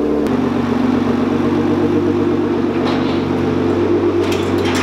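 Nissan GT-R's twin-turbo V6 idling steadily through a 4-inch straight-pipe exhaust.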